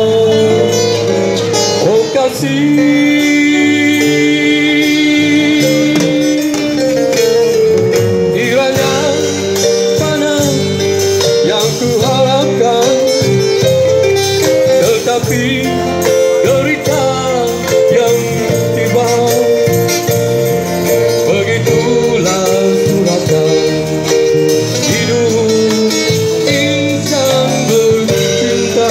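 Live band music: a man singing into an amplified microphone, backed by keyboard and guitar.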